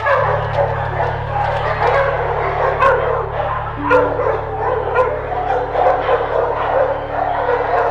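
Several dogs barking and yipping over one another in short, frequent barks, over a steady low hum.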